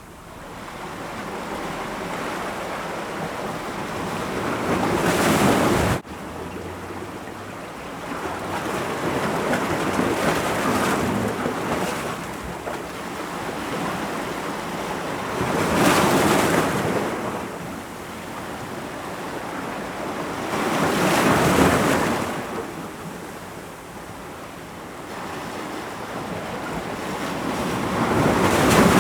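Ocean waves breaking against rocks: a steady surf rush that swells into a loud crash about every five seconds. One crash cuts off suddenly about six seconds in.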